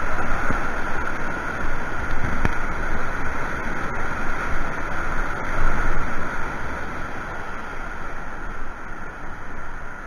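Steady rushing of white water pouring over a weir, heard close up from a kayak on the water, easing a little towards the end.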